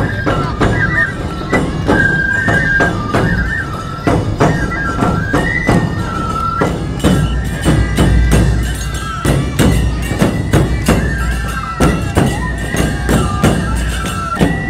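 Nebuta hayashi festival music played live on a parade float: large taiko drums beaten in a steady, dense rhythm, high bamboo fue flutes playing a repeating melody over them, and hand cymbals clashing on the beat.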